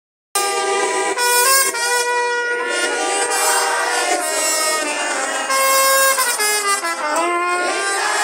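A group of people singing a praise song loudly together, with long held notes; the sound comes in a moment after a brief gap at the start.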